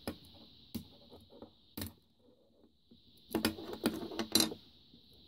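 Handling clicks from a cheap plastic soldering iron handle during disassembly: a few sharp clicks, then a louder cluster of clattering knocks about three and a half seconds in as the two handle halves are pulled apart.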